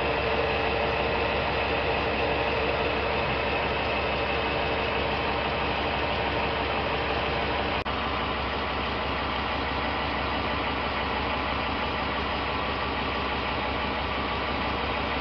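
Ford F-150's 5.4-litre V8 idling steadily, heard from beneath the truck. The engine is left running so the 6R80 transmission's fluid level can be checked hot, at about 179 °F.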